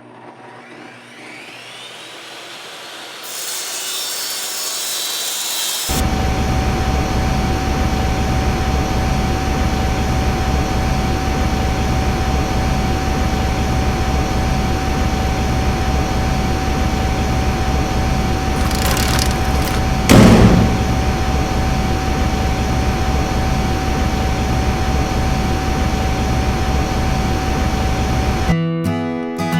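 A shop power tool or machine runs steadily with a constant whine, building up over the first few seconds, with a brief louder burst about two-thirds of the way through.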